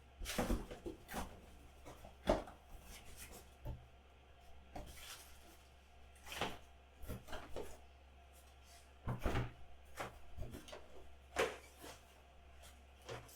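Scattered knocks, taps and rubbing from hands handling a keyboard's box and packaging, with a handful of sharper knocks spread irregularly through.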